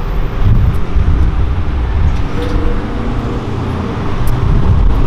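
Outdoor street noise: a loud, uneven low rumble of passing traffic.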